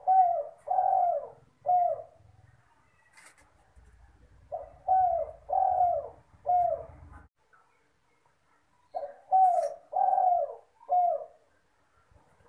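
A spotted dove (tekukur/derkuku) cooing its song three times, about four and a half seconds apart. Each phrase is a short note, two longer drawn-out coos and a short closing coo.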